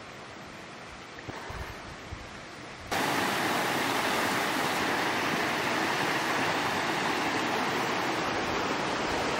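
Creek water flowing gently, with a few low rumbles of wind on the microphone. About three seconds in it jumps abruptly to a louder, steady rushing of a small rapid pouring over rocks.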